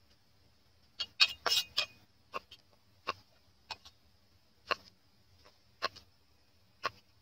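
Large kitchen knife slicing a cucumber lengthwise on a round wooden chopping board, the blade knocking on the wood with each cut: a quick cluster of knocks about a second in, then single knocks about once a second.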